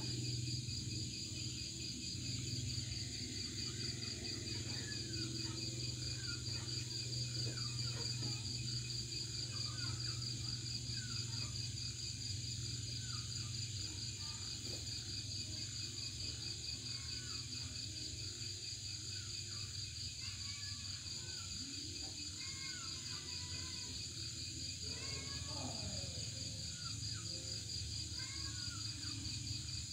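Night insects, crickets among them, chirring steadily in a fast pulsing trill over a steady low hum, with short faint chirping calls coming and going.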